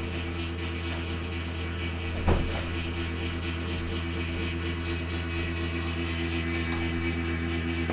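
Water heater humming steadily, with one sharp knock about two seconds in.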